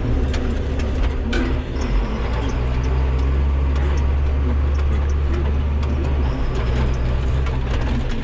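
John Deere 7800 tractor's six-cylinder diesel engine running steadily, heard from inside the cab, with light rattles and clicks. The engine note shifts slightly about two seconds in and again near six seconds.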